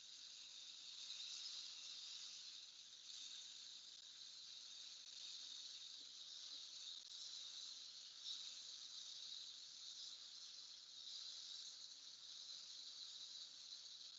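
Faint steady hiss of liquid nitrogen flowing from a hose-fed fill wand into a CXT 353 frozen sample aliquotter's LN2 reservoir and boiling off.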